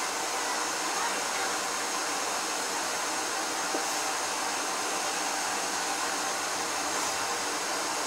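Handheld hair dryer running steadily on hot, blowing air at close range: a constant rush of air with a faint steady whine.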